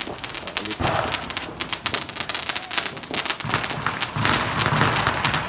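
Multi-colour 'falls' firework burning where it was lit, fizzing and crackling with a dense spray of sparks; the hiss grows louder about four seconds in.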